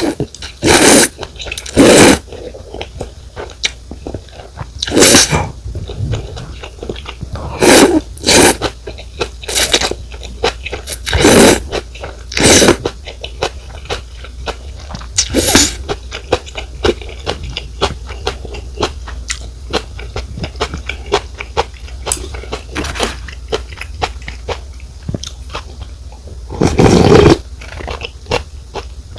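Rice noodle soup (pho) being slurped and chewed close to the microphone. There are about ten loud slurps of noodles, with a longer one near the end and soft chewing clicks in between.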